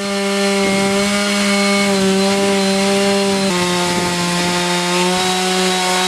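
Stihl 660 two-stroke chainsaw running at full throttle under load, ripping lengthwise through a beech log in a chainsaw mill. A steady high engine note that drops slightly in pitch about halfway through as the cut loads it a little more.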